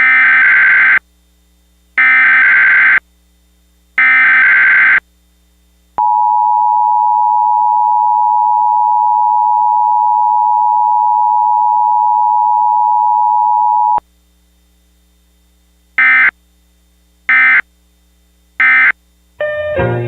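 Emergency Alert System tones: three one-second SAME header data bursts, then the two-tone attention signal held for about eight seconds, then three short end-of-message bursts. This is an attention signal on a Required Weekly Test, which normally carries none.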